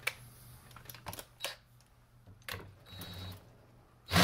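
Scattered light clicks and knocks of metal chainsaw parts being handled as the flywheel is refitted on a workbench, with a brief hum about three seconds in and a sudden loud burst of noise at the very end.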